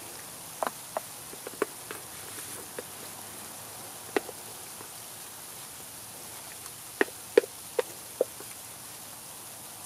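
A wooden spoon knocking against a stainless steel camp pot as mashed potatoes are scraped out onto a skillet: scattered sharp knocks, then a quick run of four about seven seconds in. Under it runs a steady hiss of sleet coming down.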